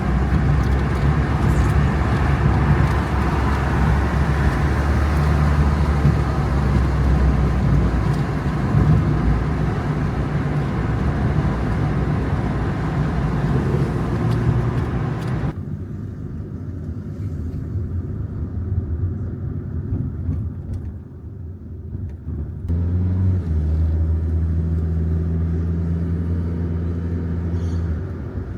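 A motor vehicle running: steady engine and road noise with a low hum, changing abruptly twice, about halfway through and again near the three-quarter mark.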